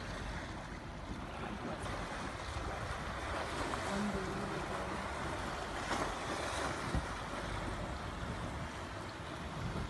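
Steady wind buffeting the microphone over rushing, lapping river water around a boat, with a brief low hum about four seconds in.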